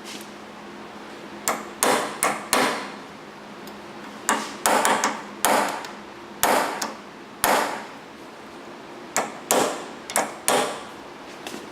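Hammer tapping a small punch against the staked metal of a car door lock solenoid, about fourteen sharp metallic strikes in irregular groups of two or three, each ringing briefly. The punch is driving back the wedged-over metal to open the solenoid for repair.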